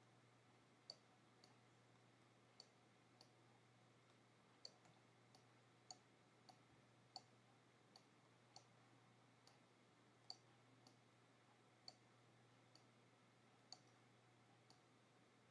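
Faint computer mouse clicks at irregular intervals, roughly one or two a second, over a low steady hum.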